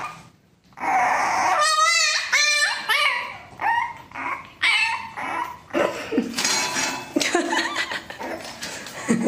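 French bulldog puppy whining and yipping in a string of high, wavering cries, starting about a second in.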